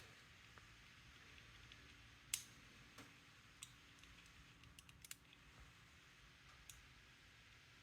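Faint, irregular small metallic clicks of a lever pick and tensioner working the levers inside a Walsall 2000 five-lever padlock, about half a dozen over several seconds, the sharpest about two and a half seconds in.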